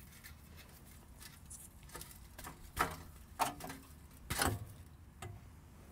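Exhaust pipe being worked loose by hand from its flange studs: a few short knocks and scrapes, the strongest about halfway through and near the end.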